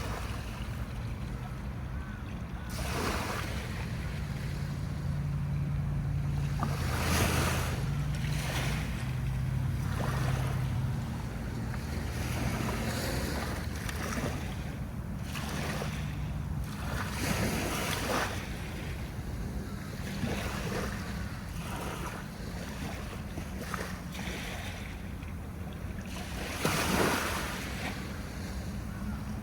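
Sea waves breaking and washing up the shore, a surge of surf every few seconds over a steady low rumble. The strongest surges come about a quarter of the way in and near the end.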